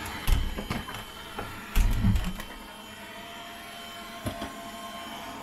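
Robot vacuum cleaner running, a steady whir from its suction fan and brushes as it works along the wall into a corner. A couple of dull knocks stand out, one just after the start and a louder cluster about two seconds in.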